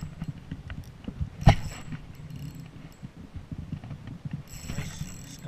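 Handling noise from a spinning rod and reel: irregular low rumbling and light ticks as the rod is held and the reel worked, with one sharp knock about a second and a half in.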